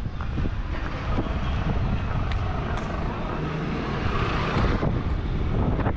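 City street traffic ambience: a steady rumble of road vehicles, with one vehicle passing and swelling about four seconds in.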